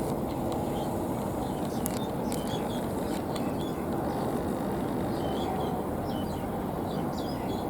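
Steady low rushing outdoor noise, with faint short bird chirps scattered throughout.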